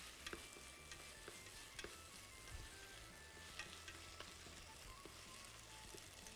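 Faint sizzling of mushrooms and tomato sauce in a stainless steel pan, with the scrape and light clicks of a spatula stirring against the pan.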